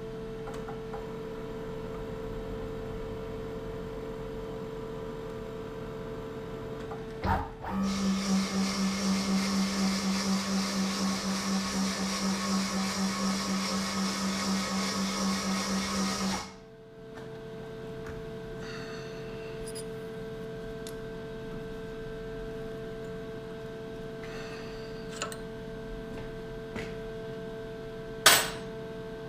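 Lathe running with a steady hum while cutting a circlip groove in a Jaguar engine's front oil seal bore. For about nine seconds in the middle a louder, pulsing cutting sound takes over, about two or three pulses a second, then the steady hum returns. Two sharp clicks come near the end.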